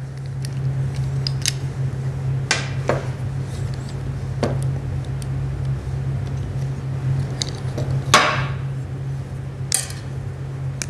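Metal clicks and clinks from a hand-held hydraulic brake-line flaring tool being worked and opened to release a freshly formed bubble flare, with a few louder clinks scattered through. A steady low hum runs underneath.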